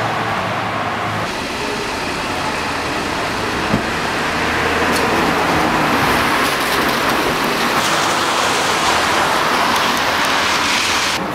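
Steady rushing noise of street traffic, with no pitch to it. It swells a little a few seconds in, and its hiss cuts off abruptly near the end.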